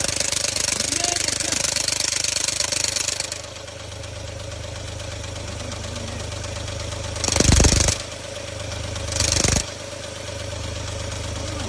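Car engine running just after starting: loud with a strong hiss for the first few seconds, then settling to a quieter steady idle, with two brief throttle blips about two seconds apart.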